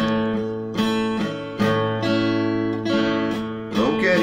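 Nylon-string acoustic guitar strumming chords in a slow, steady rhythm, a fresh stroke every half second or so, with the chord changing partway through.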